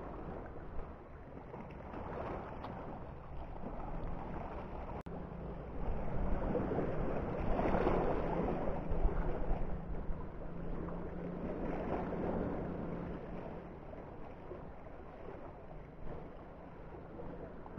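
Wind buffeting the microphone over the sound of sea water against the rocks, swelling louder in the middle, with a faint steady low drone from about four seconds in.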